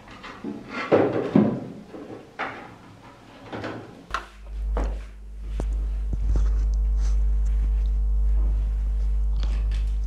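Hands handling a 3D-printed plastic button mount against a 3D printer's LCD housing: rustling, scraping and a few knocks, loudest about a second in. About four seconds in, a steady low hum takes over, with a few faint clicks.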